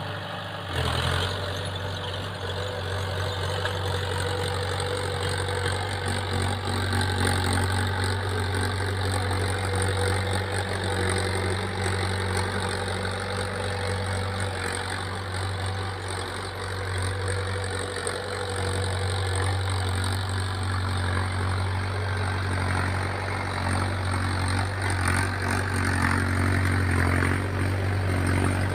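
Mahindra Yuvo tractor's diesel engine running steadily under load as it pulls a cultivator through ploughed soil, a little louder near the end as the tractor comes close.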